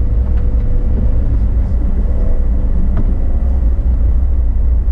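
Off-road 4x4 driving along a gravel track: a steady low rumble of engine, drivetrain and tyres, with a couple of sharp ticks about half a second and three seconds in.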